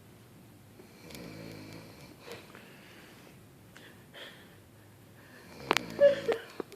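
An elderly woman snoring in her sleep: a low, rattling snore about a second in, then a louder snore with sharp clicks near the end.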